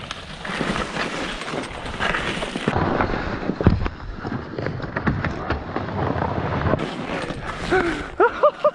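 Skis scraping and sliding through deep, uneven snow, with crunching and irregular knocks. A few short vocal sounds come near the end.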